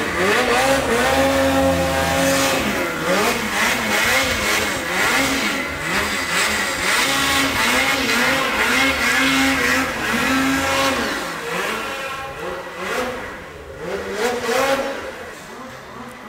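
Snowmobile engine revving up and down, its pitch swinging up and down about every second under changing throttle. It grows quieter near the end.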